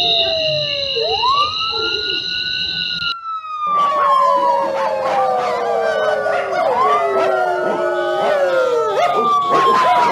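A siren wailing while a pack howls along, in long, slow falling and rising glides. After a brief cut about three seconds in, several howls overlap near the end.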